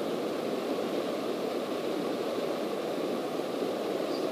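Steady drone of a single-engine Cessna's piston engine and propeller in flight, heard inside the cockpit as an even rushing noise with no change.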